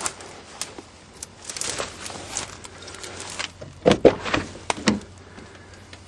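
Dry weeds and burrs rustling and crackling against the side of an old van, then a cluster of loud clunks and knocks about four seconds in as its door is worked open.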